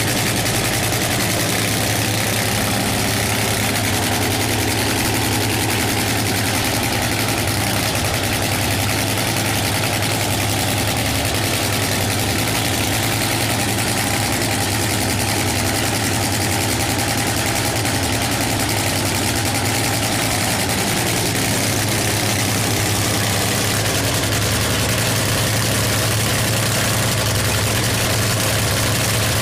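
Supercharged nitro funny-car engine of a 1989 Pontiac Trans-Am idling in a loud, steady cackle through open exhaust headers, with no revving.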